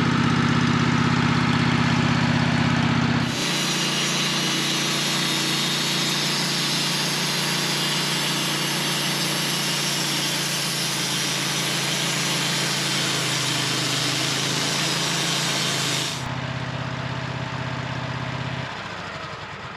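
Sawmill engine running steadily, then the blade cutting through a large honey locust log from about three seconds in until about sixteen seconds, a loud hiss over the engine. After the cut the engine runs on alone and winds down near the end.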